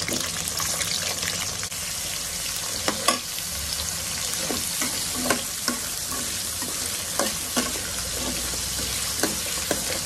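Vegetables sizzling in hot oil in a hammered aluminium kadai, a steady hiss. From about three seconds in, a steel ladle scrapes and knocks against the pan as the vegetables are stirred.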